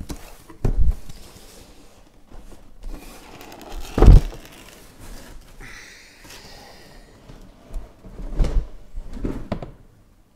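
Sealed card boxes and their cardboard shipping case being handled: a few dull thumps as boxes are lifted and set down, the loudest about four seconds in, and a brief scrape of cardboard sliding on cardboard a little past the middle.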